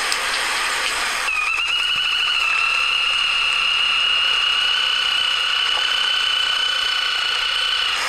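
Spillmann's tapaculo (Scytalopus spillmanni) giving a long trill that starts about a second in, rises slightly at first and then holds steady at one high pitch, over a steady hiss.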